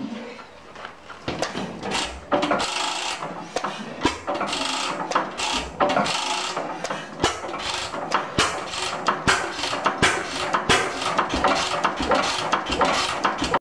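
1920 Sears Economy 9 hp hit-and-miss gas engine, its flywheel turned by hand and then spinning fast: a dense, irregular clatter of sharp clicks and knocks from the engine, growing louder about two seconds in.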